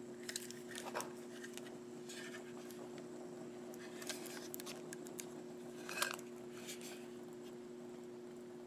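Plastic packaging rustling and clicking as the antenna unit and a plastic bag are handled, in short irregular bursts with the loudest about six seconds in. A steady low hum runs underneath.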